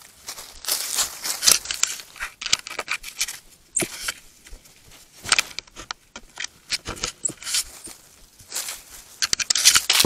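A South American coati handling the trail camera at close range: an irregular run of scratches, scrapes and sharp clicks on the camera housing, mixed with rustling.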